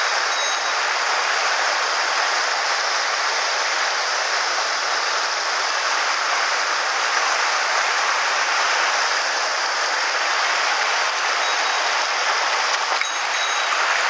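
Steady rush of a shallow mountain stream running fast over rocks and boulders in white-water riffles.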